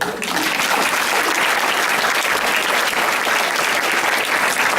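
An audience applauding steadily, breaking out suddenly right at the start, with many hands clapping together.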